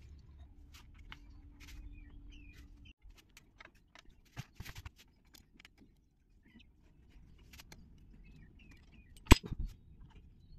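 Scattered light metallic clicks and taps of a screwdriver and small bolts being handled while the oil filter cover comes off a motorcycle engine, with one sharp, loud click near the end.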